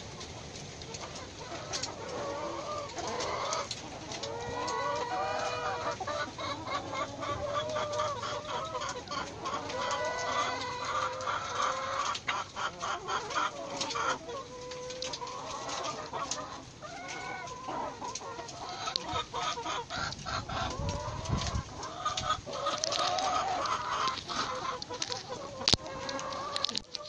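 Domestic hens clucking and cackling, with many short repeated calls and quick runs of notes. There is a single sharp knock near the end.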